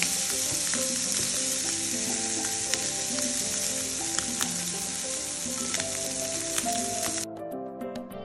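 Spice-marinated sausage pieces sizzling and crackling in hot oil in a frying pan, nearly done; the sizzle cuts off suddenly about seven seconds in, leaving soft background music.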